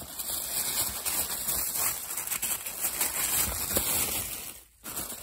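Packaging rustling and crackling in the hands as an advent calendar compartment is opened and its contents unwrapped, with a brief break near the end.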